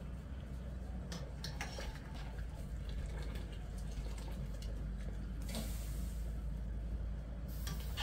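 Water running and dripping from boiled beet greens as they are strained and pressed, with scattered clicks of handling. There is a short gush about five and a half seconds in and another near the end, over a steady low rumble.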